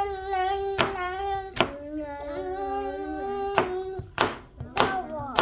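A high voice singing long, drawn-out held notes that step down in pitch about two seconds in. Several sharp claps or knocks are heard along with it.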